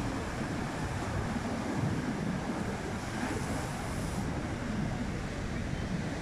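Rough sea surf: breakers crashing and washing up over a concrete slipway in a steady rush, with wind buffeting the microphone.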